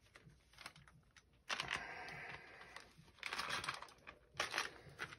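Rustling and light clicking of a printed cloth drawstring bag being pulled open and its contents handled, in a few short bursts: one about a second and a half in, another around three seconds, and a brief one near the end.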